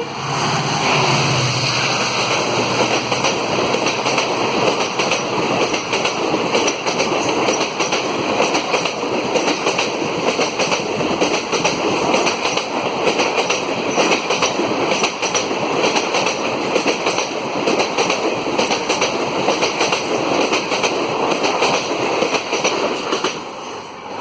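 Express passenger train's coaches rushing past at over 100 km/h, wheels clattering steadily over the rail joints, easing off near the end as the last coach goes by.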